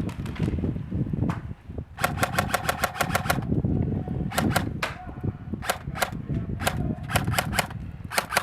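Airsoft rifle firing rapid full-auto bursts of about ten shots a second: a long burst about two seconds in, then several shorter bursts.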